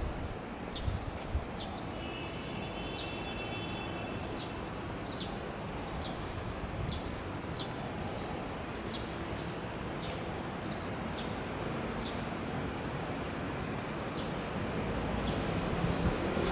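Small birds chirping in short high notes, about one a second, over a steady background rumble of distant traffic that grows louder near the end.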